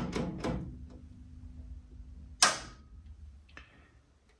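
One sharp switch click on a valve tester about two and a half seconds in, cutting off a faint steady hum. A lighter click follows about a second later.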